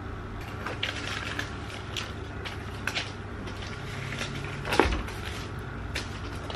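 Handling noise: scattered light clicks and knocks from small plastic items being handled, with one louder knock about three-quarters of the way through, over a steady low hum.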